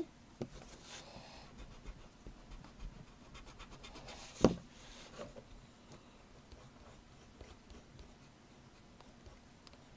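Faint scratching of a graphite pencil on paper in short strokes, with one sharp knock about four and a half seconds in.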